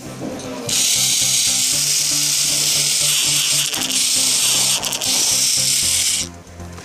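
Plarail toy train's small electric motor and gearbox running, a loud, steady, harsh high whir that starts suddenly and cuts off about six seconds in. The gear noise comes from a burr on the long gear.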